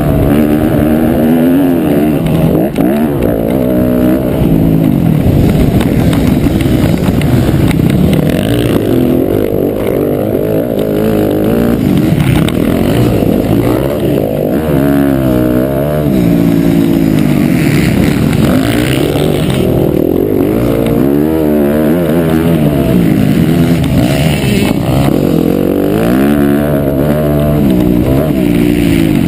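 Motocross bike engine heard close up from on board, running hard and revving up and dropping back again and again as the rider works the throttle.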